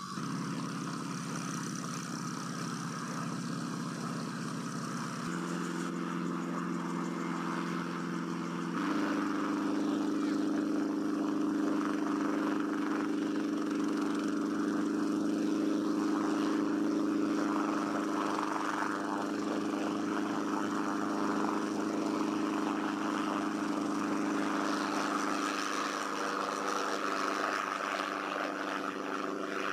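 Light helicopter running on the ground: a steady engine and rotor drone whose pitch steps up twice in the first nine seconds, then holds. It lifts off near the end.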